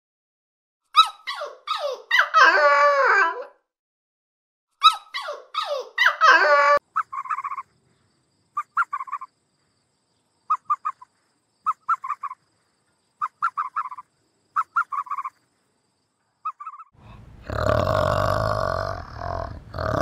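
Dogs whining and yelping in high, wavering cries for the first seven seconds. Then about a dozen short, clipped chirps in small groups, and, about three seconds before the end, a great ape's deep grunting rumble.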